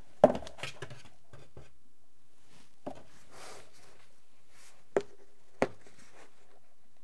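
Hard clear plastic tool case of a socket set being handled: a sharp knock just after the start and a few light taps. About five seconds in come two sharp plastic clicks, half a second apart, as its latches are snapped open.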